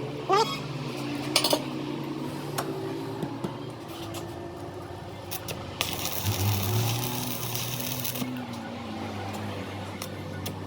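Sharp metallic clinks and taps, the loudest in the first two seconds, over a steady low machine hum, with a stretch of hissing noise about six seconds in.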